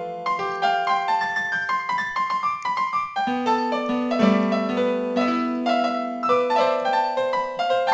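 Instrumental passage of a Latin ballad with no singing: a melody of held notes over sustained chords, changing every second or so.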